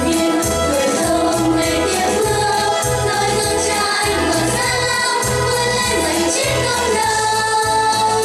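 A children's vocal group singing together into microphones over instrumental accompaniment with a steady, pulsing bass beat.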